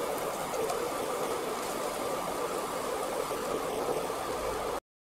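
Dumplings deep-frying in a pot of hot oil: a steady sizzle that cuts off suddenly near the end.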